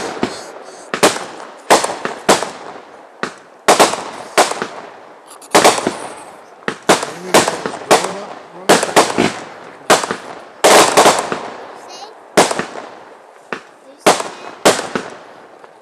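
Aerial fireworks bursting: about twenty sharp bangs in quick, irregular succession, each followed by a fading echo.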